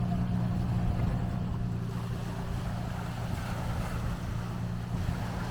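A motor running steadily with a low, even rumble, with some wind noise over it.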